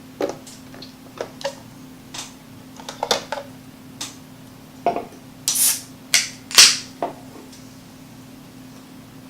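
Irregular sharp clicks and taps, with two short hissing scrapes about five and a half and six and a half seconds in, the second the loudest; a faint steady hum runs underneath.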